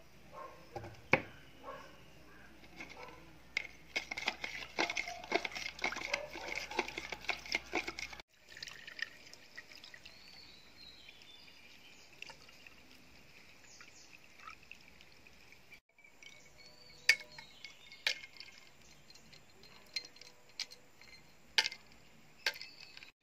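A spoon stirring and scraping in a plastic jug of lemon juice, with a rapid run of clicks. Then lemon juice pours from the jug through a plastic strainer into a glass, followed by a few sharp clinks of ice cubes going into the glass.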